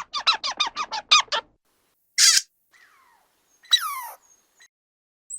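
Squirrel chattering: a quick run of about ten sharp, squeaky calls at roughly six a second, stopping about a second and a half in. A short hissing burst follows, then a harsher squeal that falls in pitch near the four-second mark.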